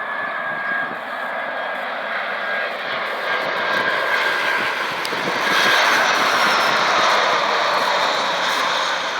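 Jet noise from an Airbus A319-111's CFM56 turbofan engines, a steady rushing roar that swells louder about five and a half seconds in. A thin high whine sounds at first and fades within the first few seconds.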